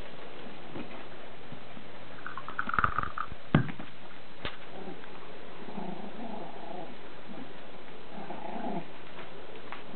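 Chihuahua puppy growling in short bursts at play with a toy, twice in the second half. About two to three seconds in there is a short high squeal, and a few sharp knocks are the loudest sounds.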